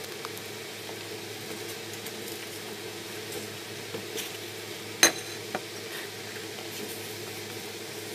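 Chunks of raw potato tipped from a plate into a stainless steel cooking pot, with light knocks and one sharp clatter about five seconds in, over a steady low hum.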